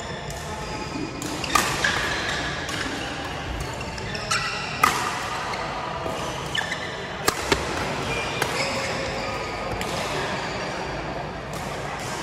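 Badminton play: a series of sharp racket strikes on the shuttlecock at irregular intervals, over a steady background of hall noise.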